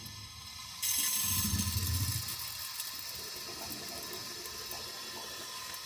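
Water rushing into freshly re-soldered copper supply pipes as the water is turned back on: a sudden hiss about a second in, loudest for the first second or so, then settling to a steady hiss as the lines fill and pressurize.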